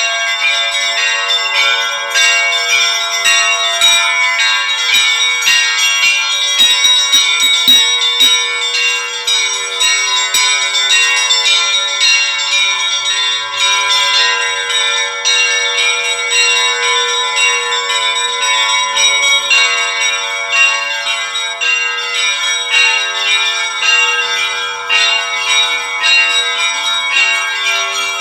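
Russian Orthodox church bells ringing together: a quick, continuous pattern of strikes on smaller bells over deeper bells ringing on steadily.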